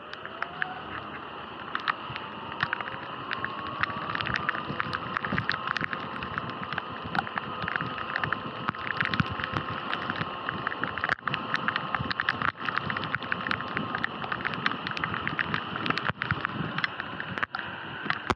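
Sur-Ron electric dirt bike's motor whining, rising in pitch as the bike pulls away, then holding steady, over a hiss of tyres on a wet road. Irregular sharp ticks run throughout.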